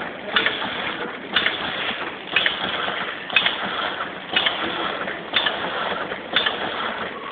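Tea pouch packing machine running in its cycle: a sharp clack about once a second over a steady mechanical clatter.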